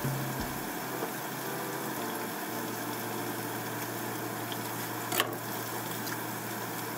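Steady low hum with an even hiss in a kitchen, and one short click about five seconds in as tofu goes into the pot.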